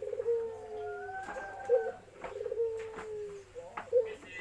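Ringneck dove (burung puter) cooing its 'kuk-geruk' song twice, about two seconds apart. Each phrase is a short note and a quick rolling stutter that runs into a long coo falling slowly in pitch.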